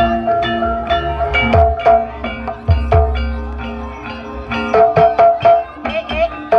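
Javanese gamelan music of the kind played for ebeg: metallophones and gongs strike and ring out a melody over kendang hand-drum strokes that bend down in pitch.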